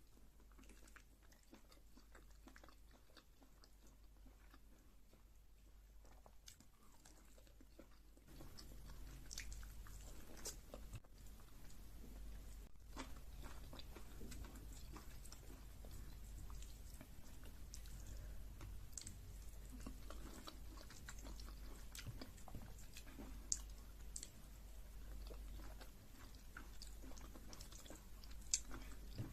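Close-miked chewing and biting of someone eating fufu with vegetable soup and chicken: soft, wet mouth sounds with many small clicks and smacks. A steady low hum comes in about eight seconds in.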